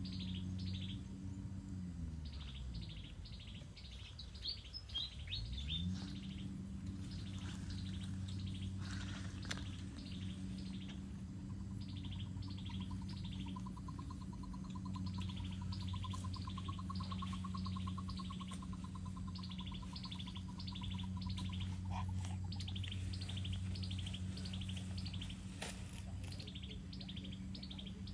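Small birds chirping: runs of short, high, quickly falling notes, repeated again and again. A steady low hum runs underneath and dips in pitch, coming back up between about two and six seconds in.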